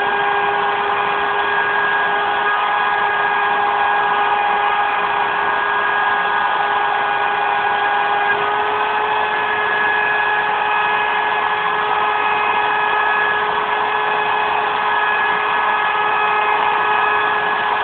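CNC router spindle running at a steady high speed with a constant whine over a rushing noise, cutting 18 mm MDF; its pitch rises very slightly about eight seconds in.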